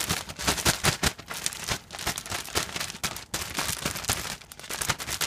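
Plastic bag being shaken with flour and oyster mushroom pieces inside, giving a fast, irregular run of crinkling rustles.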